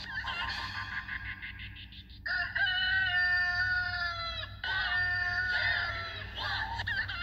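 Background music for about two seconds, then two long, held animal calls in the manner of a crow: the first lasts about two seconds, the second is shorter, and each falls in pitch at the end.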